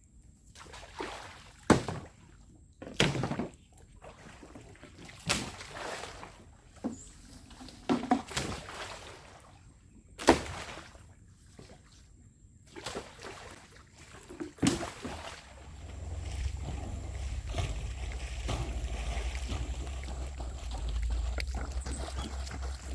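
Water sloshing and splashing, broken by a half-dozen loud, sharp knocks at irregular intervals. A steady low rumble starts about two-thirds of the way through.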